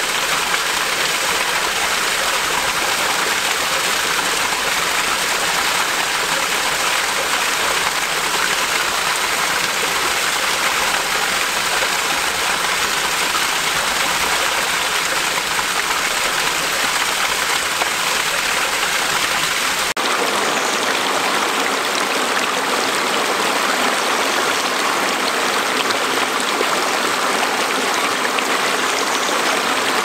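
Steady rush of a small waterfall pouring onto rock. About two-thirds of the way through, the sound changes abruptly to a thinner, lighter rush of a small cascade in a rocky stream, with less low rumble.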